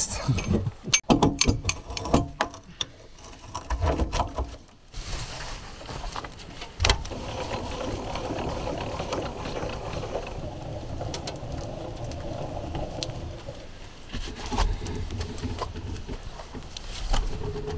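Knocks, clatter and scraping as a flat rock is worked into place under a trailer's tongue jack foot. This gives way about five seconds in to a steady rolling noise as the trailer's wheels move over forest dirt.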